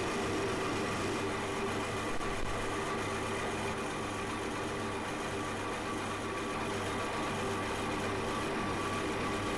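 Milling machine running an end mill across the face of an old vise part, taking a steady cut: a constant machine hum with several held tones over an even cutting noise.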